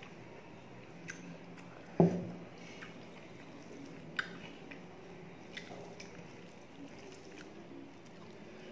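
Curry dripping from a bowl onto rice, then a bare hand squishing and mixing rice and curry on a steel plate, with small wet clicks. One sharp thump about two seconds in is the loudest sound.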